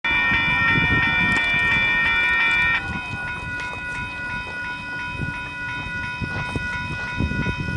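A train horn sounding a chord of steady notes that cuts off about three seconds in. Quieter steady ringing tones with a light regular strike, about three a second, carry on after it, like a grade-crossing bell, over a low rumble.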